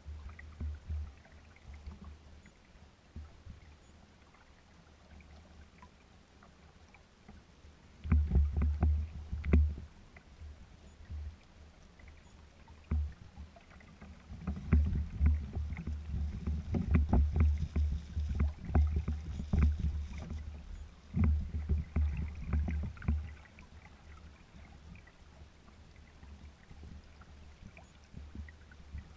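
Small waves slapping and splashing against a kayak's hull as it sails slowly under a small downwind sail, in irregular bursts with heavy low rumble, busiest about a third of the way in and through the middle, quieter at the start and end.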